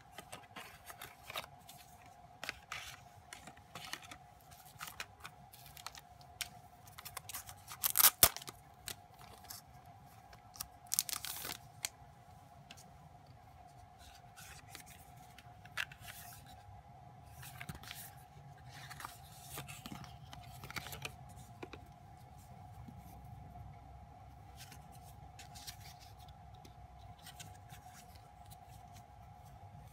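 Photocards and cardboard packaging handled by hand: scattered rustles, slides and small clicks, with two louder crinkling bursts about 8 and 11 seconds in. A faint steady tone runs underneath.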